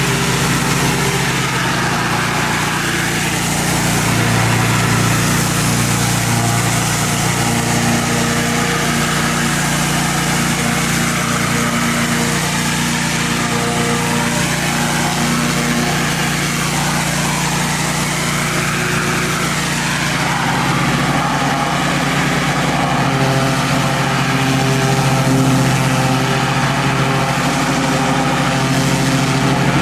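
Gas-engine pressure washer running steadily, with the hiss of high-pressure water spray.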